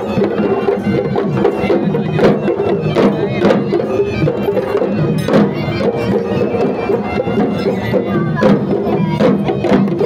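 Traditional Sri Lankan procession music played live: hand drums beating in a quick rhythm of sharp strokes under steady held wind-instrument tones.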